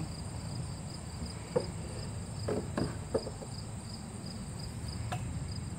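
Insects chirping in a steady, evenly pulsing rhythm, with a few faint knocks about halfway through.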